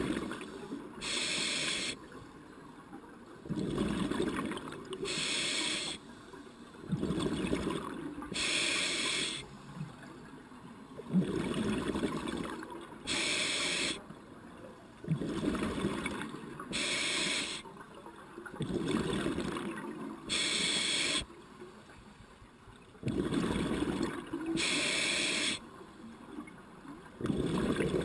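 A scuba diver breathing through a regulator underwater: a hiss on each inhale, then a bubbling rumble as the exhaled air escapes, about one breath every four seconds, seven breaths in all.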